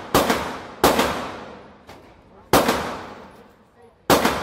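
Handgun shots in an indoor shooting range: four sharp reports at uneven intervals, each followed by a long echoing decay off the range walls.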